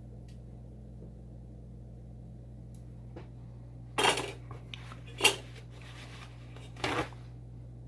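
Three brief kitchen clatters, like dishes or utensils being handled, as the cooked steak is set aside to rest. The second is the sharpest and loudest. A steady low hum runs underneath.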